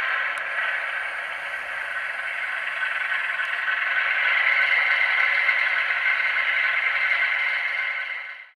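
Hornby OO gauge AEC railcar model running on track, its LokSound DCC decoder playing a short-working diesel multiple unit engine sound through a small on-board speaker, a stand-in that is not an exact match for the AEC railcar. The sound is steady and fades out about eight seconds in.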